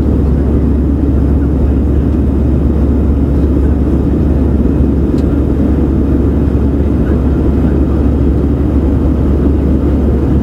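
Steady low rumble of an Airbus A320's jet engines and rushing air, heard from inside the cabin at a window seat as the airliner climbs after takeoff.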